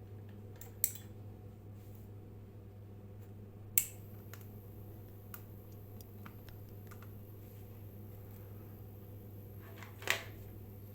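Steady low electrical hum with a row of evenly spaced overtones, with three sharp clicks: about a second in, near four seconds and near the end.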